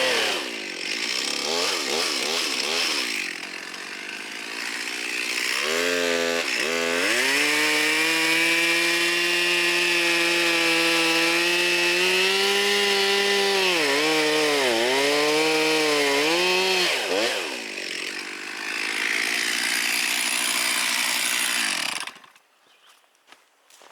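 Stihl MS362 two-stroke chainsaw cutting oak rounds: it drops back between cuts, revs up about six seconds in and holds steady high revs under load with brief dips, then shuts off abruptly near the end. It keeps its power in the cut instead of bogging, running right on newly replaced fuel lines.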